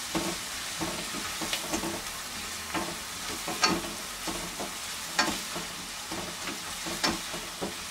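Chopped onion sizzling in melted butter in a stainless steel frying pan as it is stirred: a steady sizzle with scattered sharp crackles and scrapes.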